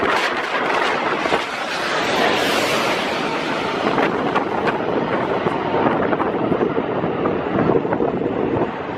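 Strong gusty wind buffeting the microphone: a loud, steady rushing noise that swells briefly about two seconds in.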